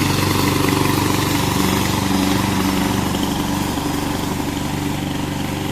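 Engine of a JT550 remote-controlled lawn mower running steadily while the mower drives, fading slightly toward the end.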